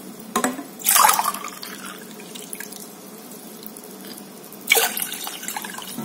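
Water poured from a ceramic mug into a stainless steel saucepan, splashing in short bursts about a second in and again near the end.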